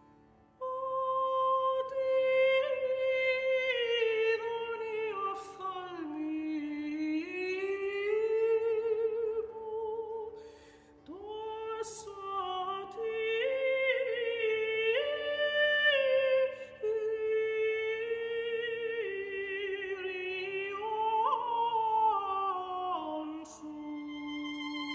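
Music: a soprano sings a slow melody with wide vibrato and sliding pitch, in phrases broken by short breaths, over a steady tampura drone. It begins out of near silence about half a second in.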